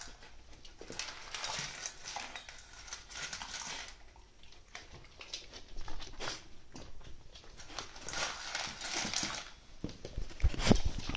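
A bull terrier puppy crunching dry kibble, a run of quick, irregular crackling chews. A louder low bump comes near the end.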